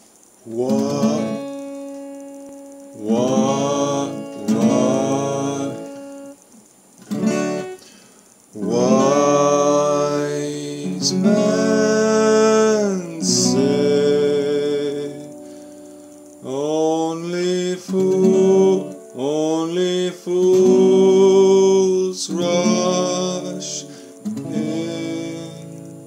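Acoustic guitar played in chords, each phrase struck and left to ring out before a short pause. A man's voice sings along softly in places.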